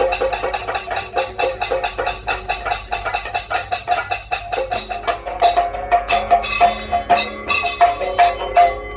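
Live Kathakali percussion accompaniment. Rapid, even strokes run at about six a second, then give way about halfway through to slower strokes with ringing metallic tones.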